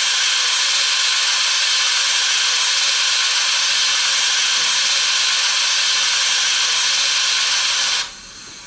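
Steam-hiss effect from a model steam locomotive's DCC sound decoder (Zimo MX644D with Mr Soundguy sound), played through its small 23 mm speaker while the engine stands: a loud, steady hiss that cuts off abruptly about eight seconds in.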